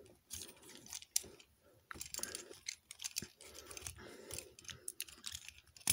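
Plastic parts of a Transformers action figure being handled and shifted into place during its transformation: faint rubbing with scattered small clicks.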